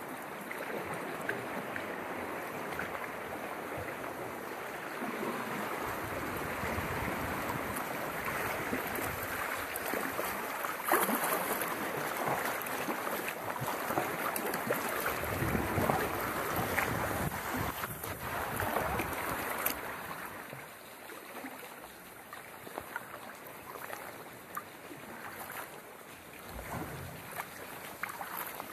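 Sea water sloshing and splashing against a paddled sea kayak. It is louder and busier through choppy water in the middle, then drops to a quieter lapping as the water calms near the end.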